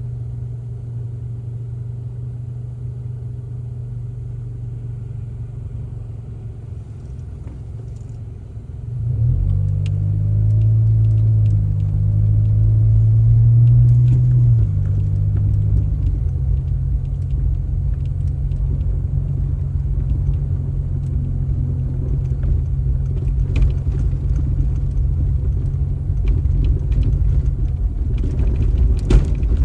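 A vehicle engine running with a steady low hum. About nine seconds in it gets louder and stays louder.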